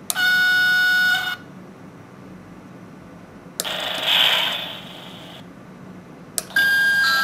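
WT588D sound module playing railway sound samples through a small speaker as its buttons are pressed: first a steady horn-like tone for about a second, then a hiss lasting about two seconds, then after a click a two-tone note that steps down in pitch near the end.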